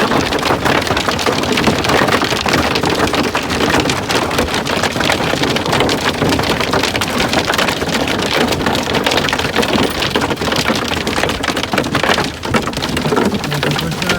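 Heavy rain beating down, dense drops striking a hard surface in a loud, steady downpour.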